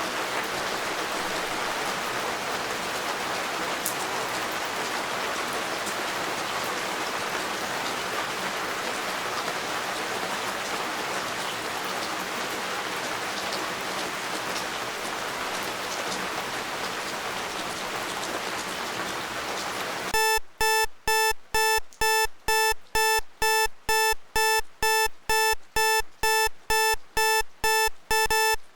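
Steady rain falling for about twenty seconds, then it cuts off suddenly as the timer's alarm goes off: a pitched electronic beep repeating about three times a second.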